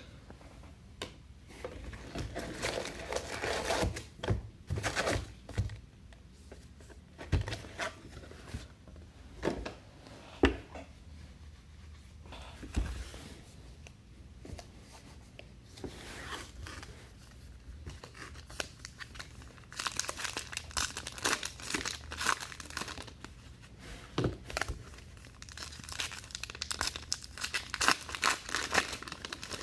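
Trading card pack wrappers being torn open and crinkled, with cards and packaging handled on and off; the sound comes in irregular crackling bursts and sharp clicks, busiest about two-thirds of the way through and near the end.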